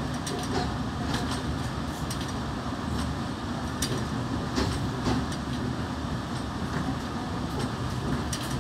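Passenger train moving slowly, heard from inside the carriage: a steady low rumble with scattered sharp clicks and clacks from the wheels and carriage.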